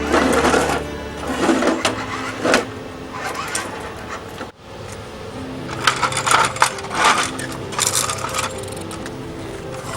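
Small hard toy pieces, such as toy logs and plastic construction toys, clattering and rattling in irregular bunches, loudest near the start and again past the middle, over light background music with held notes.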